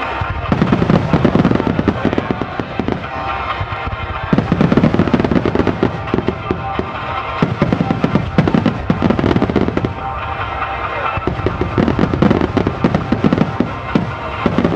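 Wide starmine fireworks barrage: many aerial shells bursting and crackling in rapid succession, coming in waves every few seconds. Music plays underneath.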